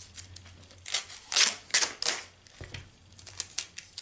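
Black tape being peeled off the seam of a small metal tin in several short, quick pulls, the four loudest coming between about one and two seconds in, with small ticks of handling between them.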